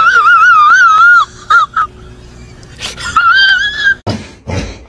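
A dog whining in a high, wavering voice for over a second, with two short yips after it. Another rising whine follows a little later. A few brief noisy rustles come near the end.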